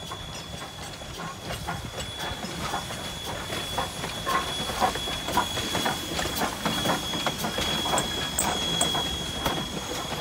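McCloud River Railroad No. 25, an Alco 2-6-2 steam locomotive, rolling past close by with its coaches: wheels and running gear clicking and knocking over the rail joints above a low rumble, with a steady hiss of steam. It grows louder as the engine comes alongside.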